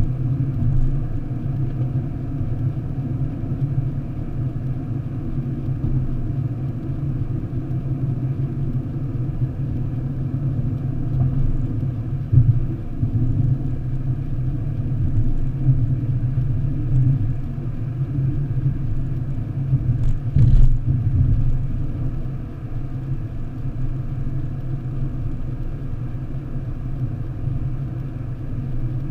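Steady low rumble of a car's tyres and engine at motorway speed, heard inside the cabin. There is a short thump about twelve seconds in and another about twenty seconds in, as the car goes over bumps in the road.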